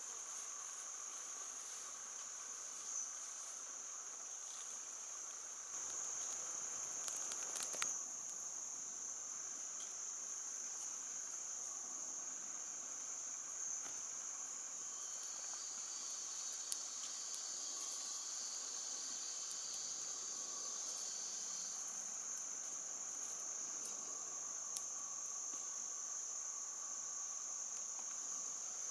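Steady insect chorus: a continuous high-pitched shrill with a fainter lower drone beneath it. Another insect adds a second shrill from about fifteen to twenty-two seconds in, and a few faint clicks come near eight and seventeen seconds.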